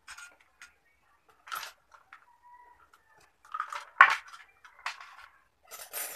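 Plastic knocks and clatter from handling a small plastic clip-on electric fan: half a dozen short, irregular knocks, the loudest about four seconds in.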